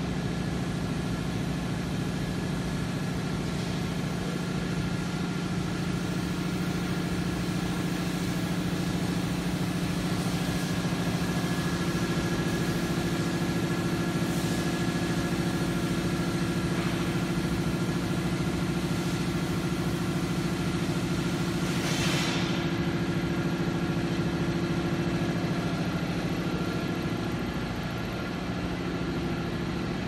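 Steady mechanical hum of workshop machinery running, with a short hiss about 22 seconds in.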